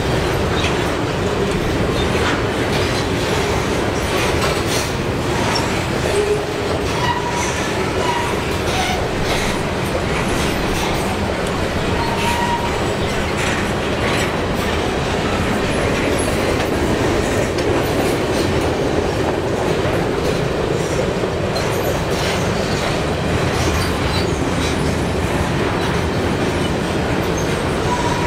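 Freight train cars rolling by, their wheels clicking steadily over rail joints, with a few brief wheel squeals.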